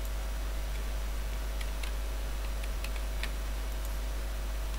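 A few faint, scattered clicks of a computer mouse and keyboard over a steady low electrical hum and hiss from the microphone.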